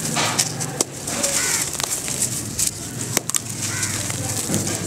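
Dry red dirt clods crumbling and crunching between the hands, with a steady crackly hiss of powder and grit pouring down and a few sharp cracks as lumps break, one loudest about three seconds in.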